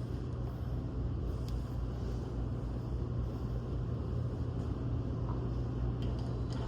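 Steady low hum over a faint even background noise.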